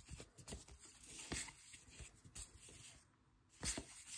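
Baseball trading cards being handled and flipped through one by one: faint, scattered taps and slides of card stock, with a sharper pair of taps near the end.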